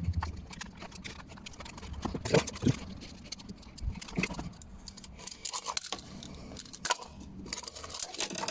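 Scattered light clicks, taps and rattles of hands unfastening and lifting off the plastic distributor cap of a Nissan A14 engine, with sharper knocks a few times.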